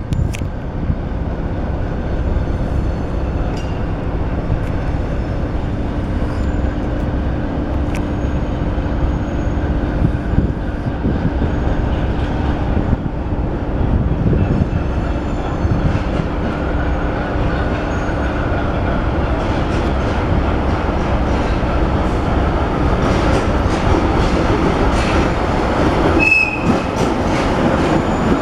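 ChME3 shunting diesel locomotive running during shunting moves: its six-cylinder diesel engine running steadily and its wheels rolling over the rail joints, growing a little louder in the last third.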